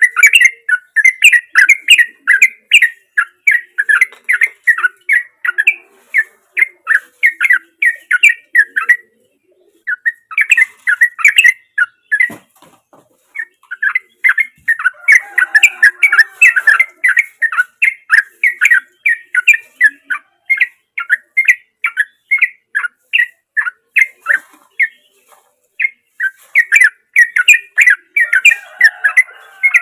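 Yellow-vented bulbul (trucukan) singing a long, fast run of short chattering notes, about three a second. The song breaks off twice in the first half.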